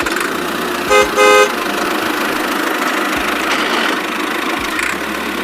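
Two short horn toots, the second slightly longer, about a second in, over the steady running noise of a DIY mini tractor.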